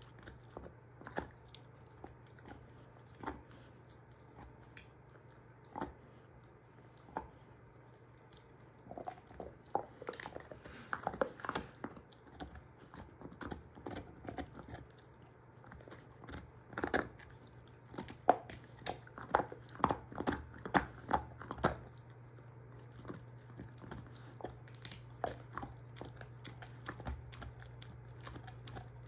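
German shorthaired pointer gnawing on a beef soup bone: irregular sharp cracks and crunches of teeth on bone, coming thick and fast in two runs about ten seconds in and again from about seventeen to twenty-two seconds in, sparser between. A steady low hum runs underneath.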